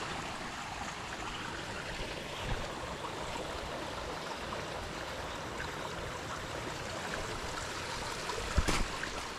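Creek water running steadily, with one sharp knock or snap near the end.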